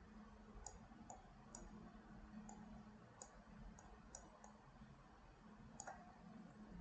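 Faint computer mouse button clicks, about a dozen at irregular intervals, made while dragging a sculpting brush, over a faint steady low hum.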